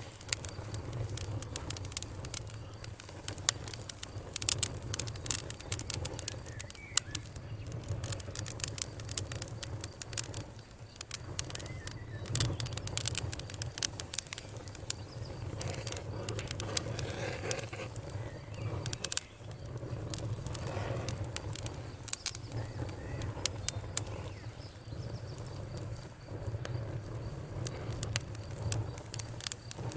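Open wood fire crackling, with many irregular sharp pops and snaps over a steady low rumble of the flames. Birds call and crickets chirp steadily in the background.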